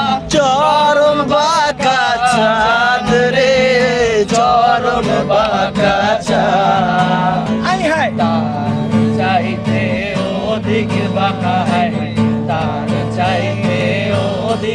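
A man singing a slow melody while strumming chords on a Yamaha acoustic guitar.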